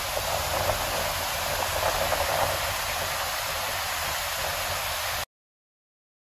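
Waterfall white water rushing steadily over rock, a dense even hiss of falling water. It cuts off abruptly about five seconds in to silence.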